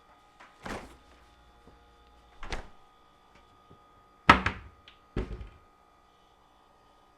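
A door being shut: four dull thuds a second or two apart, the third the loudest with a couple of smaller knocks right after it, over a faint steady hum.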